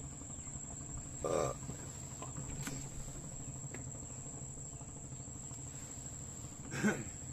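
Insects shrilling steadily in the waterside vegetation, one continuous high-pitched tone, with a brief louder sound near the end.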